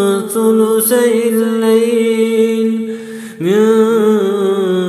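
Unaccompanied male voice reciting the Quran in Arabic in a slow, melodic style. One long drawn-out note is held, then a short breath about three seconds in, then another long held note.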